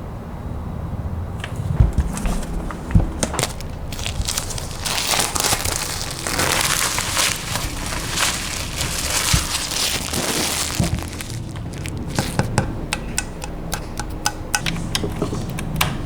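Keyboard packaging being handled and unwrapped: plastic or paper crinkling and rustling, densest in the middle, with scattered clicks and knocks before and after.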